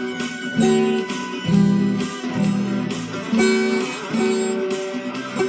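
Instrumental break in a song: a guitar strumming chords, a new chord struck about every second.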